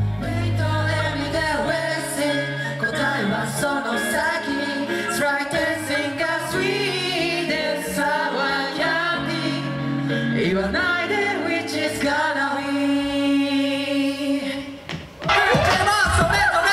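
Male vocal group singing a pop medley into microphones over backing music, with shifting melody lines. About fifteen seconds in, it breaks off briefly and a louder, fuller section begins.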